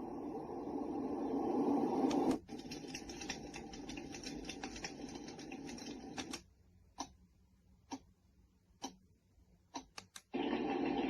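Sound machine playing its built-in sounds: a steady rushing noise that grows louder, then switches abruptly about two seconds in to a noisy sound full of fast ticks. This cuts out about six seconds in, leaving a handful of separate sharp clicks, and a rushing sound starts again near the end.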